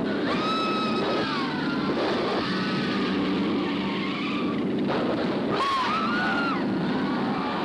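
Racing-car engines droning steadily under a crowd's yelling, with high, wavering screams rising over it twice.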